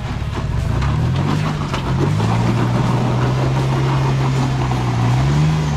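A Jeep's engine running under load on the trail. Its pitch climbs over the first two seconds, then holds a steady drone, with a short rev just before the end.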